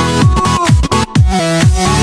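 Background electronic dance music: a steady beat of bass notes that slide sharply downward, under a synth melody.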